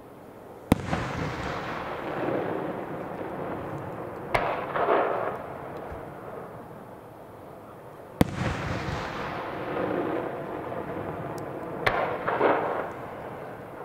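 Aerial firework shells bursting: a sharp bang about a second in and another about eight seconds in, each followed by a long rumbling echo. A further bang and a loud spell of crackling come a few seconds after each.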